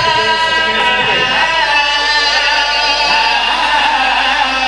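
Men singing a Muharram lament (noha) into microphones, the voices held in long, wavering sung lines without a break.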